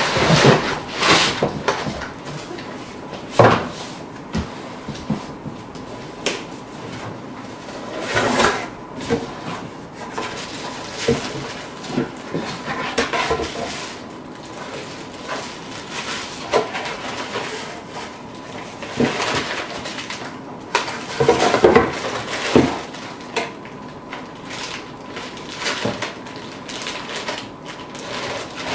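Packaging being handled: a cardboard box and a plastic-wrapped power adapter and cables rustling and knocking irregularly, with a sharp knock about three seconds in and a busier stretch of rustling past the middle.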